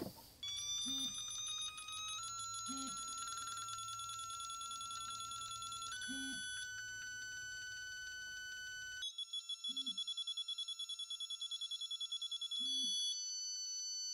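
Electronic alert tones from a Milwaukee digital torque wrench as it is pulled to its 50 ft-lb target: steady tones that step in pitch a few times, then rapid beeping from about nine seconds in that settles into a steady tone near the end. A few faint knocks come between them.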